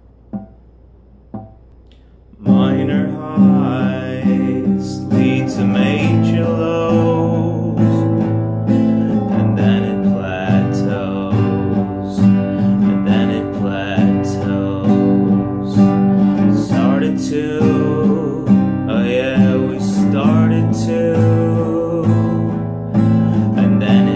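Nylon-string classical guitar strummed in a steady rhythm, with a man singing along. The playing starts about two and a half seconds in, after a couple of soft clicks.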